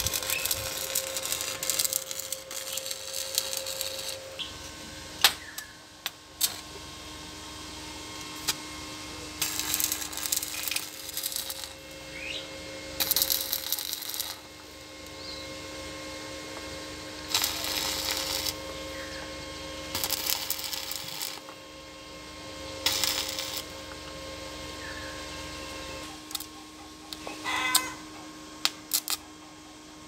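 Stick arc welding on a steel tractor plough frame: the arc crackles and sizzles in about seven separate runs, each lasting one to four seconds. A steady hum and a few sharp clicks fill the gaps between the runs.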